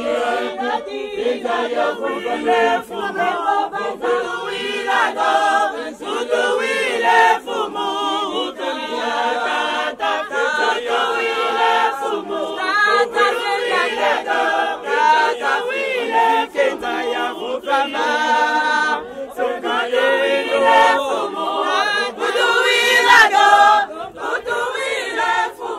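A group of voices singing together in unison without instruments: a choir of marchers singing a hymn as they walk.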